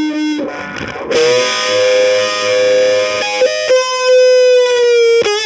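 Music on distorted electric guitar: long sustained notes that slide up or down into the next.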